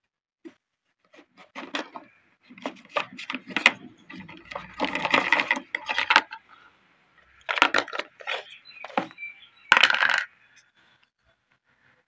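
Hard plastic housing of an electric kettle base being pulled apart and handled: irregular clicks, scrapes and small clatters, loudest about five seconds in and again near ten seconds.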